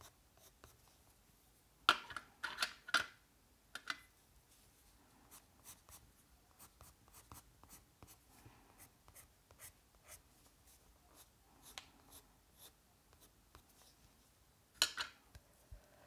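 Caran d'Ache watercolor pencil scratching across sketchbook paper in many short colouring strokes. A few louder clacks come about two seconds in and again near the end.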